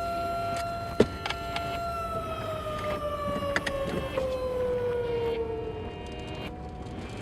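Outdoor tornado warning siren holding one steady tone, then winding down, falling in pitch from about two seconds in and fading out. A sharp knock about a second in, and a few lighter clicks later.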